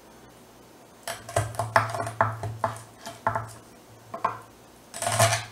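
Chef's knife working through a raw chicken wing joint on a wooden cutting board: a run of short, sharp knocks and clicks as the blade rocks on its tip and presses through cartilage and soft bone, starting about a second in, with a louder knock near the end as it cuts through.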